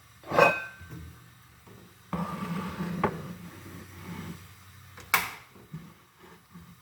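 Coffee cups being handled and switched: a clink with a brief ring about half a second in, a couple of seconds of rough rubbing noise with a click, then a sharp knock about five seconds in.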